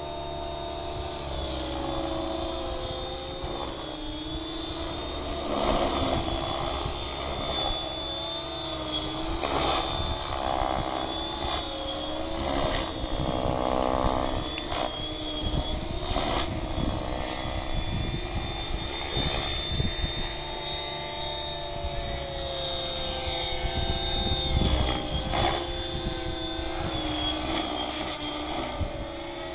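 Compass 6HV 600-size electric RC helicopter in flight: a steady whine from its motor and drivetrain whose pitch dips and rises as it manoeuvres, swelling louder several times with rotor noise.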